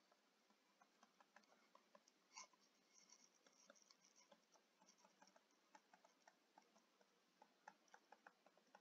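Near silence with faint, irregular little clicks and taps of a stylus writing by hand on a tablet screen.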